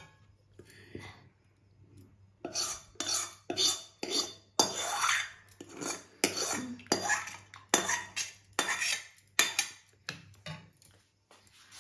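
Metal spoon scraping thickened milk out of a stainless steel pan, in a run of quick strokes about one or two a second, starting about two and a half seconds in.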